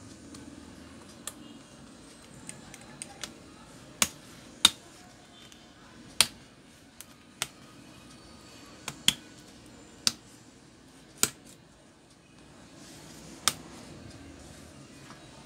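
Keys on an HP EliteBook 840 laptop keyboard pressed one at a time: about ten sharp, separate clicks, spaced irregularly a second or so apart.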